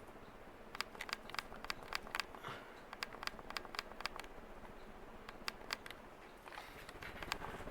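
Westinghouse Apollo Elite ceiling fan running on high, a steady low hum with a string of sharp, irregular clicks, several a second, between about one and six seconds in.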